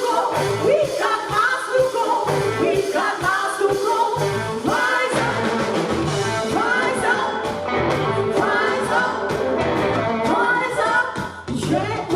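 Live blues-rock band playing an instrumental passage: a lead electric guitar plays repeated rising bends, about one a second, over bass and drums.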